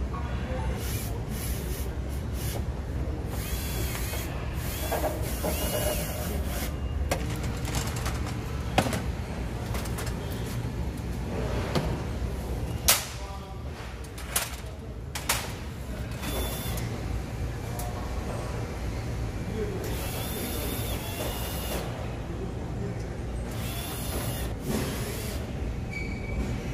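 Cordless drill-driver running in several short bursts, its motor whine rising and falling as it drives screws into a sheet-metal enclosure and mounting bracket. A few sharp knocks of metal parts are heard in between, over a steady low hum.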